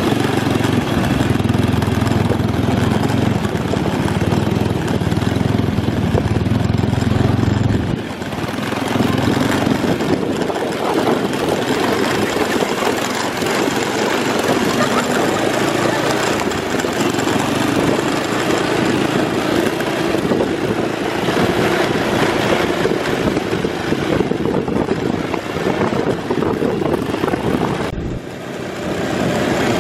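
Off-road go-kart engine running under way as the buggy drives over a rough dirt track. The sound dips briefly about 8 seconds in and again near the end.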